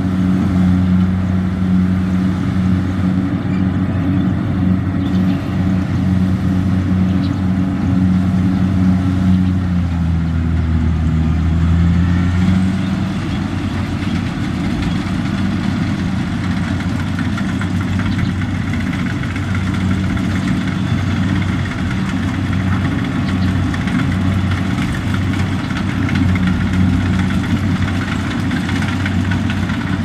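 Kubota DC-70Plus rice combine harvester's diesel engine running steadily as the machine cuts through the rice, a continuous droning hum. About ten to twelve seconds in the pitch dips slightly, and after that it runs a little quieter and rougher.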